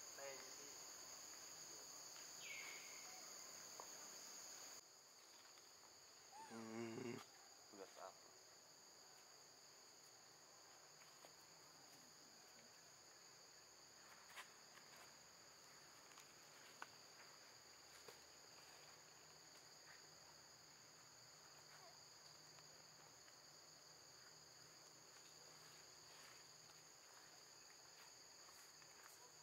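Steady, high-pitched insect chorus ringing in two bands. A short falling chirp comes near the start, a brief wavering call about seven seconds in, and a few faint ticks later on.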